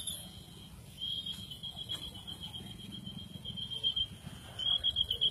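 High-pitched electronic alarm tone sounding steadily with a slight flutter. It breaks off just before four seconds in and starts again near the end, over a low rumble.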